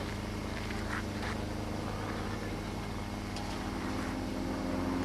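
An engine running steadily, a constant hum that grows slightly louder near the end.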